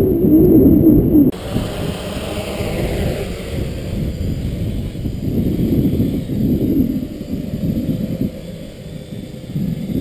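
Strong wind buffeting the microphone, an uneven rumble. About a second in the sound changes abruptly, and a fainter whine falling in pitch over a couple of seconds appears above the rumble.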